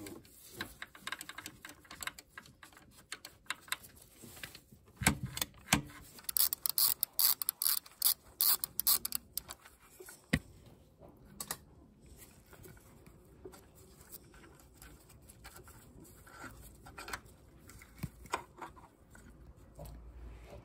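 Hand tools clicking and knocking on the alternator's mounting bolt and bracket as the bottom bolt is worked out, with a dense run of rapid clicks in the middle and scattered single knocks after.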